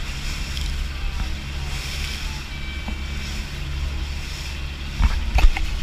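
Outrigger boat running fast through choppy sea: wind buffeting the microphone and spray rushing along the hull over a steady low hum. A few loud splashes come near the end.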